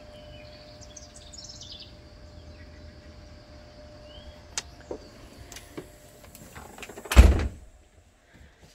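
Outdoor background of bird chirps over a steady insect drone, then a door shut with one loud thud about seven seconds in, after which the background drops away to quiet.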